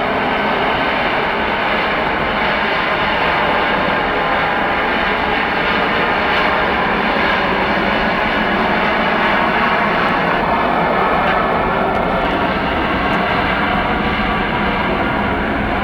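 Airliner engines running loud and steady: a continuous rush of engine noise with a whine of several tones over it.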